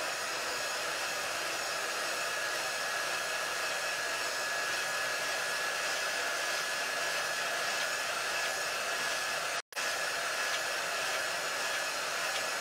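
Handheld dryer blowing hot air to dry chalk paste on a stencil. It is a steady rush of air with a thin, constant high whine. The sound drops out completely for an instant about ten seconds in.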